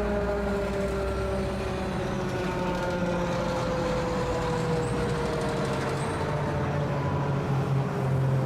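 Federal Signal 2001-130 outdoor warning siren sounding one steady wail whose pitch slides slowly and evenly downward, as on a long fall of the siren's tone, over a low rumble of road traffic.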